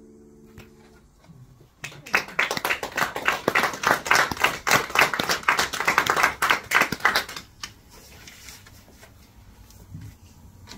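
The last chord on an electronic keyboard dies away, then an audience applauds for about five seconds.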